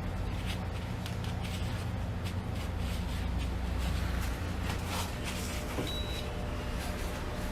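Busy food-stall ambience: a steady low hum with scattered light clicks and clatter, and one short high beep about six seconds in.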